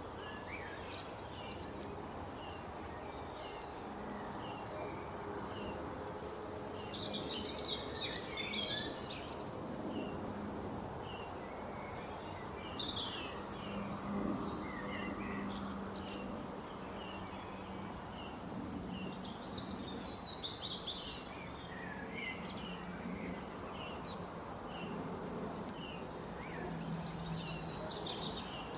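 Birds calling with many short chirps, and a denser burst of rapid chattering calls about seven to nine seconds in, over a faint steady low hum.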